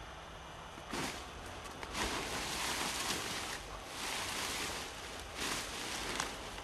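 Dry corn stalks rustling in several bursts as they are gathered up by hand, with a sharp click near the end.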